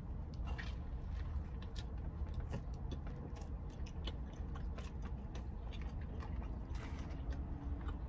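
A person chewing food close to the microphone, with many small wet mouth clicks and smacks throughout, over a steady low hum.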